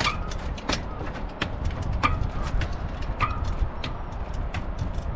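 Trials bike hopping up wooden steps: the tyres land on each tread with a sharp knock, about one every two-thirds of a second, some knocks with a brief metallic ring.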